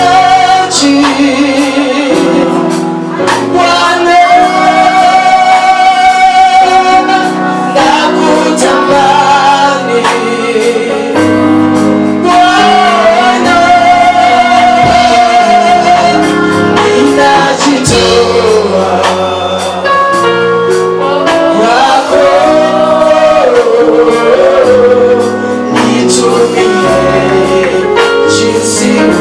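Live gospel worship music: a lead singer's voice, mostly female, over sustained keyboard and band chords.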